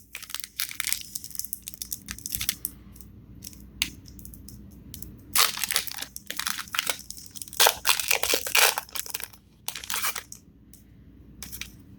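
Foil booster pack wrapper of Pokémon cards being torn open and crinkled in the hands: irregular crackling and rustling, busiest from about five to nine seconds in.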